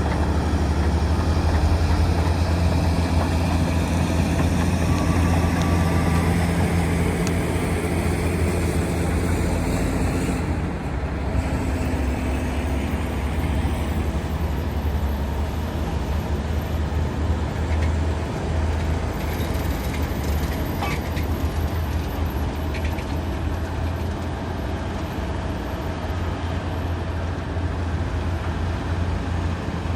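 Komatsu D275AX bulldozer's large diesel engine running steadily under load as a deep drone. It eases off slightly about a third of the way in, and a few brief knocks come later.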